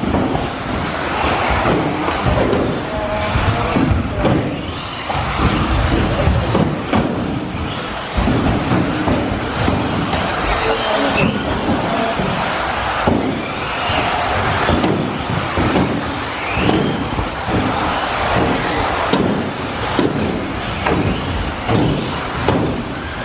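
Several 1/10-scale electric RC off-road buggies, among them a Team Associated B5M, racing on an indoor track: a steady, dense noise of motors and tyres, with short rising whines now and then as the cars accelerate.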